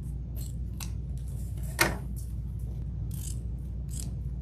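Scissors snipping through ribbon several times, cutting dovetail ends into bow tails; the sharpest snip comes about two seconds in. A steady low hum runs underneath.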